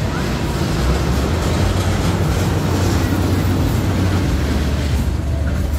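Loud, steady rushing and rumbling of a fairground ride running, with a constant low hum underneath.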